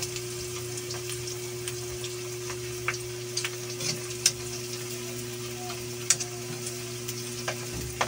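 Pork belly slices deep-frying in hot oil in a wok: a steady sizzle with scattered sharp ticks and pops, over a steady low hum.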